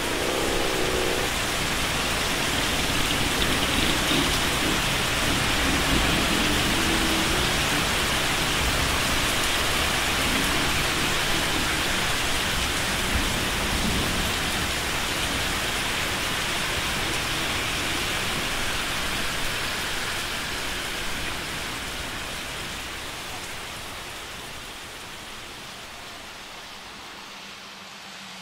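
Heavy running water, a steady even hiss that fades gradually over the last several seconds.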